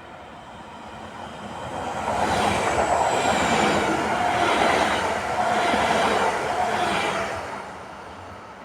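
A train passing close by on the rails: the noise builds up, stays loud for about five seconds with a faint steady whine in it, then dies away as it moves off.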